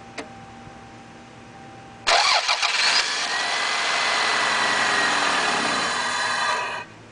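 A 16-valve EFI four-cylinder engine with an open cone air filter is started. About two seconds in it turns over roughly and unevenly for about a second, then runs with a steady hiss and faint whistle for about four seconds before cutting off suddenly.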